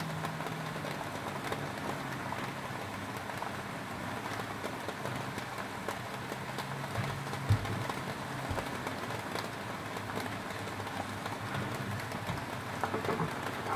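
Foil-wrapped tilapia cooking over a gas burner's flame: a steady crackly sizzle with scattered small pops as the juices and butter in the packet cook and smoke.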